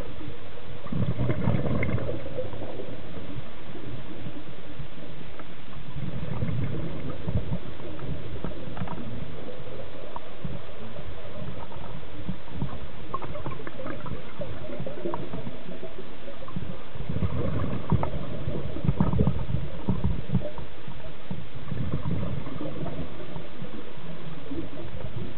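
Scuba diver's regulator breathing heard underwater: exhaled bubbles rumble and gurgle in swells every few seconds over a steady hiss, with scattered faint clicks.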